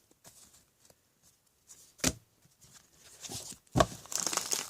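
Trading cards being handled and leafed through: a short tap about two seconds in, another a couple of seconds later, then a light papery rustle of cards sliding against each other near the end.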